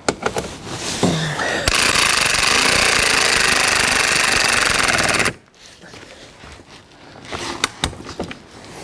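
Cordless impact driver with a 10 mm socket running down the plastic fog light's mounting bolt: a loud, rapid hammering rattle for about three and a half seconds that cuts off suddenly. A few small clicks and knocks of handling come before and after.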